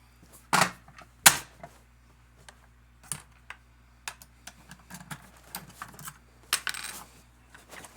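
A fire alarm pull station being handled after it has been knocked open: a series of sharp clicks and knocks of its parts, the loudest about a second in, with small ticking rattles between and a quick cluster of clicks near the end.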